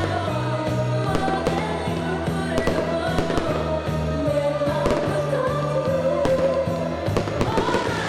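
Music with a singing voice over sustained low notes, with fireworks popping and banging over it in quick, irregular succession.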